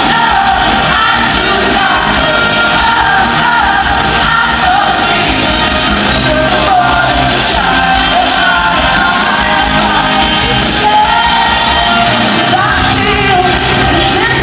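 Pop-rock song with a woman singing lead over a full band, loud and steady, in the echo of a large hall.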